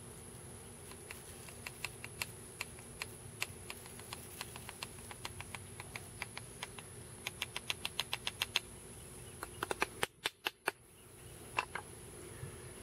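Light, sharp taps of a curved piece of wood against a bow-drill fireboard at the pile of black char dust in its notch. The taps are scattered at first, then come in a quick run about seven to eight seconds in, with a couple more near the end.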